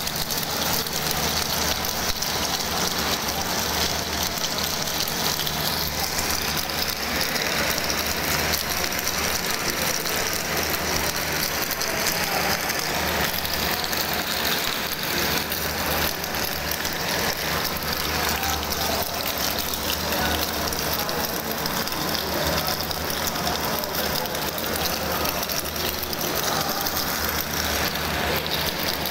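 Kurkure extruder machine running steadily: a low hum under a dense, even rattling clatter.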